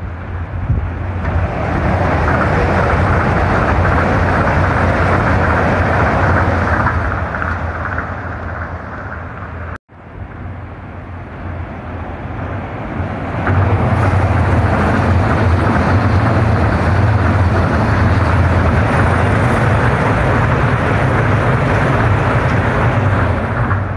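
Tokyo Monorail trains passing overhead on the elevated beam: the rubber-tyred running gear gives a steady rushing rumble over a low hum. The first pass builds, holds and fades, then the sound breaks off abruptly; a second pass builds up a few seconds later and holds loud.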